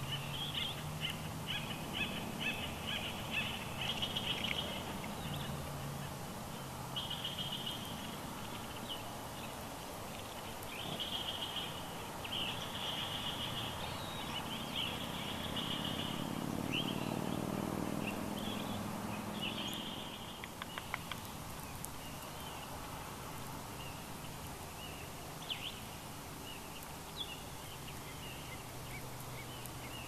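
Acorn woodpeckers calling in repeated rapid series of short notes, thick for about the first twenty seconds and then sparser. A low rumble swells and fades around the middle.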